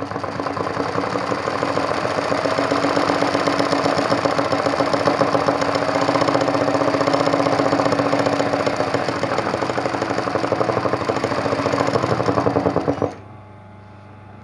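Sewing machine running fast and steadily, its needle making rapid strokes in free-motion embroidery stitching. It stops abruptly about a second before the end.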